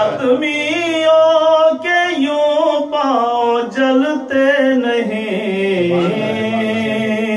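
A man's solo voice chanting verse unaccompanied, in long held melodic phrases with a wavering pitch.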